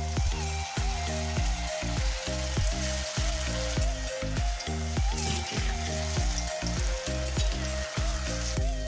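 Battered baby corn deep-frying in hot oil in a wok, a steady sizzle, heard over background music with a steady beat.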